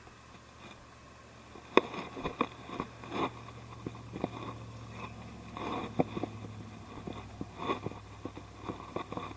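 Irregular clicks, knocks and light scraping starting about two seconds in, the sharpest near the start and again about six seconds in, over a steady low hum.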